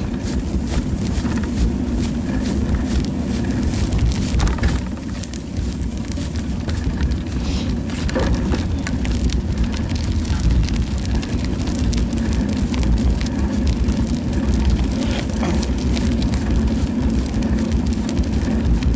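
Bicycle ride: steady low wind rumble on the microphone and tyre noise on asphalt, with many small clicks and rattles scattered throughout.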